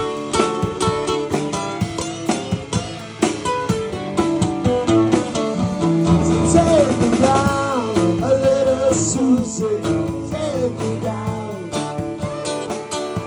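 Live rock band playing on the street: drum kit, electric guitars and an acoustic guitar, with a saxophone melody coming in about six seconds in.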